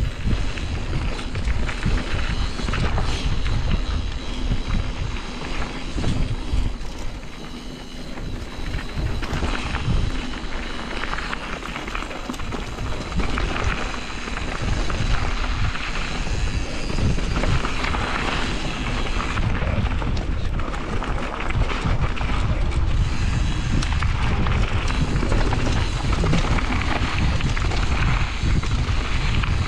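Mountain bike ridden fast down a gravel singletrack: tyres crunching over stones, the bike rattling and knocking over bumps, and wind buffeting the microphone.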